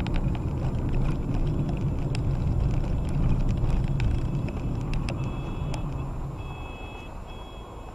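Car road and engine rumble recorded from inside the car by a dashcam, steady and then fading over the last two seconds, with scattered small clicks. In the second half a high two-note electronic beep sounds three times.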